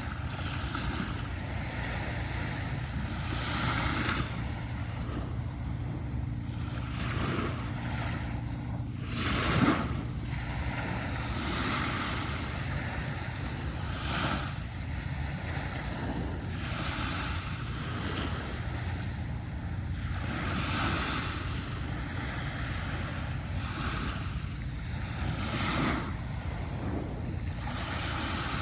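Small sea waves breaking and washing up a sandy beach, a hiss that swells and fades every couple of seconds, with one louder break about a third of the way in. A steady low rumble runs underneath.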